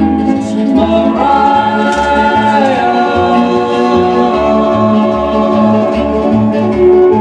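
A vinyl record playing through a late-1950s Magnavox tube console phonograph: a song with group harmony singing over a steady bass line.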